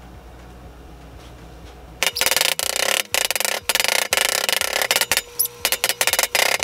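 Metal meat mallet pounding a plastic-wrapped chicken breast flat on a plastic cutting board: a rapid run of loud blows starting about two seconds in.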